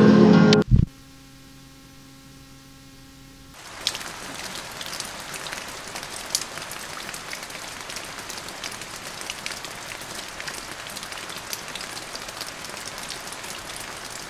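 Steady rain falling on garden foliage: an even hiss dotted with many individual drops tapping. It starts about four seconds in, after guitar music cuts off and a moment of faint hum.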